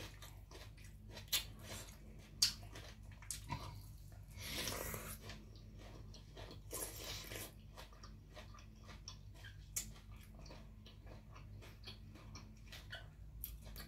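Close-up chewing of blanched squid: wet mouth clicks and smacks, with two longer soft hissing sounds a few seconds in.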